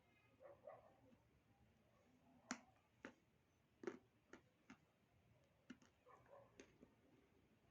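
Dry edible clay crunching, heard as a scatter of sharp, crisp cracks at irregular intervals, faint overall.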